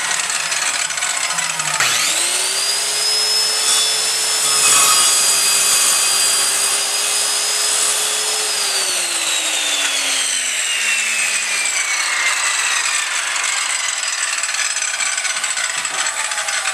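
Handheld circular saw starting up about two seconds in and cutting through a wooden 2x4 for about six seconds. The trigger is then released and the blade winds down with a long falling whine.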